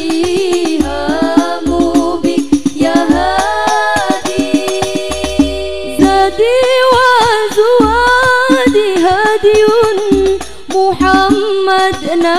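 Women's voices singing an Islamic sholawat melody together, in long ornamented phrases that slide between notes, over a steady beat of hadroh frame drums (rebana) with deep bass-drum thumps.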